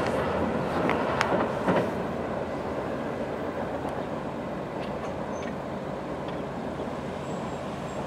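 Norfolk Southern double-stack intermodal train rolling away on the rails, its rumble slowly fading, with a few sharp clicks in the first two seconds.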